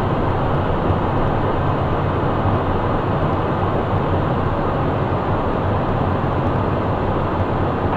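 Steady cockpit noise of a Cessna Citation 501 in flight: the rush of airflow and its twin Pratt & Whitney JT15D turbofans, with a low hum underneath and no change in level.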